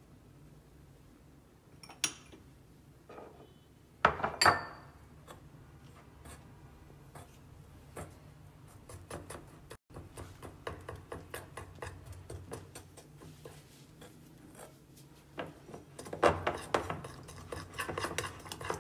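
Metal spoon clinking against a glass bowl: a few sharp clinks in the first seconds, the loudest about four seconds in, then rapid light tapping and scraping as thick gram-flour batter with egg and milk is stirred, busiest near the end.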